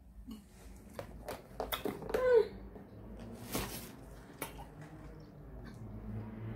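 Light clicks and handling noises from a sweets packet and a gummy snake, with a brief pitched mouth or voice sound about two seconds in and a short hiss a little later.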